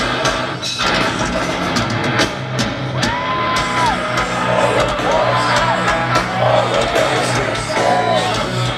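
Heavy metal band playing live: loud distorted electric guitars and pounding drums, with voices yelling over the music, heard from within the crowd.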